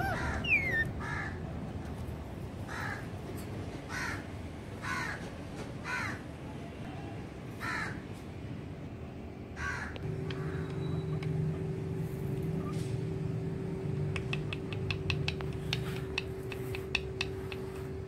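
Male Indian ringneck parakeet giving short harsh squawks, about one a second for some ten seconds. About ten seconds in a steady hum starts, and near the end comes a quick run of faint clicks or chirps.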